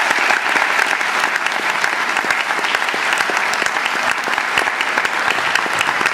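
Recital audience applauding: dense, steady clapping from many hands.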